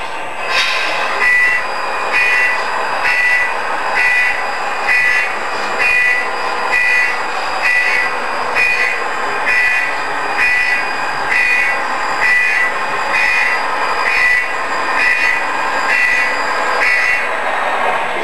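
Scale RC truck's sound unit giving a reversing warning, a high beep about once a second over a steady engine-like noise, while the Tamiya Mercedes 1838 tractor unit backs up with its lowloader. The beeping stops shortly before the end.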